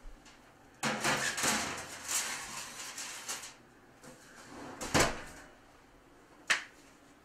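Foil-covered metal baking pan slid onto an oven rack, with foil rustling and metal scraping, then the oven door shut with a sharp knock about five seconds in. A shorter sharp click follows a moment later.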